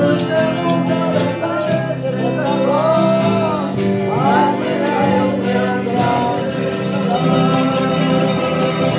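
Live band music: strummed acoustic guitars keeping an even rhythm, with a voice singing the melody over them.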